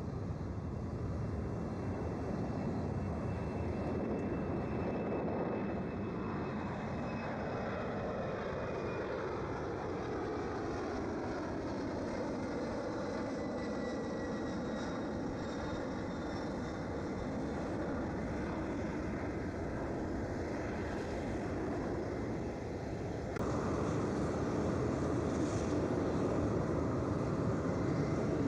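Jet aircraft engines running as a large plane passes close by: a steady rush of engine noise with slowly sliding, curving tones. The sound jumps suddenly louder about 23 seconds in.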